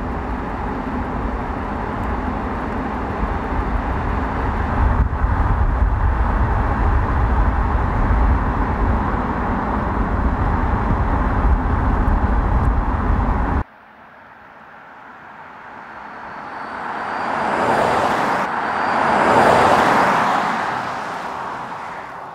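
Mercedes EQB electric SUV driving on asphalt: a steady rumble of tyre and wind noise, which cuts off suddenly a little past halfway. After that a quieter vehicle sound swells up twice as it approaches and passes, then begins to fade.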